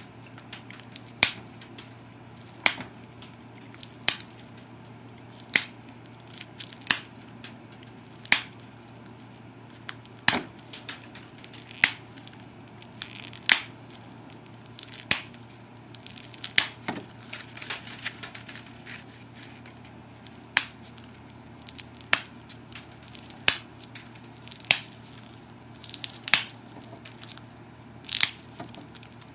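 Copper pressure flaker pushing flakes off the edge of an obsidian biface: a sharp snap, sometimes with a little crackle, as each flake pops free, about once every one and a half seconds.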